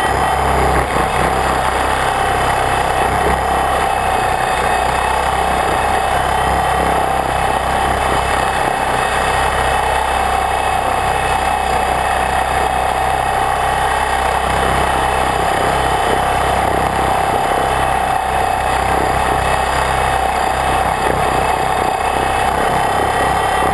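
Radio-controlled helicopter's motor and rotor, heard from a camera mounted on the helicopter in flight: a loud, steady whine that holds one pitch.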